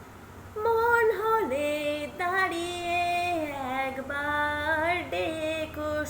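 A woman singing the opening of a slow Bengali song solo. Her voice comes in about half a second in, on long held notes that glide from one pitch to the next.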